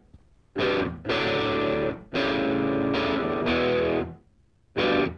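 Background music: distorted electric guitar playing chords in short stop-start bursts, each cut off sharply, with brief gaps between them.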